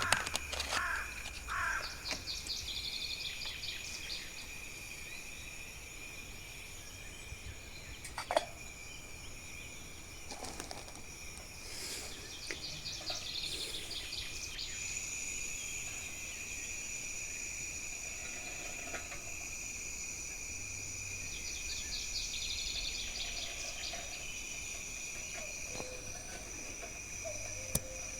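Outdoor ambience: a songbird repeats a short trilling phrase roughly every ten seconds, over a steady high thin whine.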